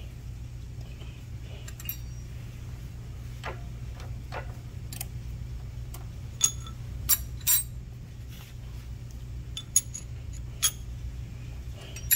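Steel hand tools clinking and tapping against each other and the cast-iron cylinder head: a scattered run of light metallic clicks, several with a short ring, over a steady low machine hum.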